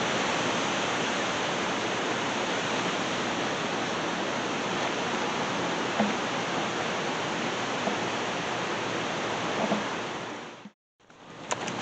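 Strong wind blowing across the microphone, a steady rushing noise with a couple of faint knocks, cutting off suddenly near the end.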